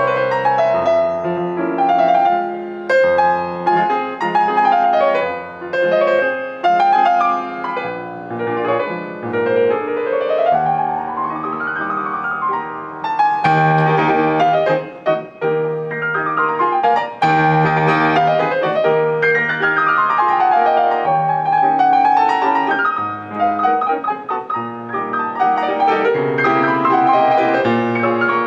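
Piano music, a fast classical-style piece with quick runs sweeping up and down the keyboard.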